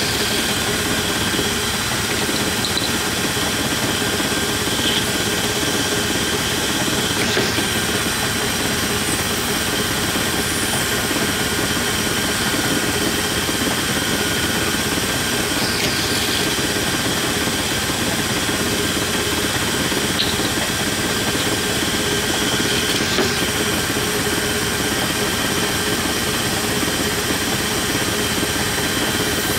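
Hardinge lathe running steadily, its spindle turning a part in the collet with a constant mechanical whir and several steady whining tones. A few faint brief noises stand out over it.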